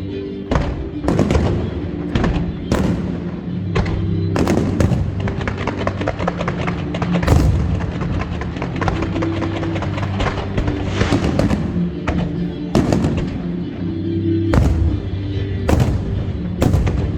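Aerial fireworks going off in irregular sharp bangs, some trailing into crackle, over loud music.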